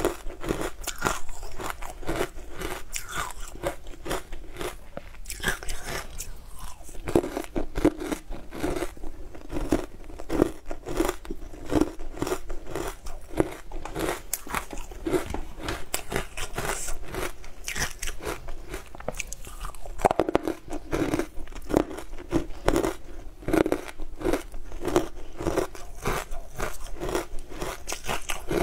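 Frozen food chunks being bitten and chewed close to a clip-on microphone: a steady run of sharp, crisp crunches, many a second, as the icy pieces break between the teeth.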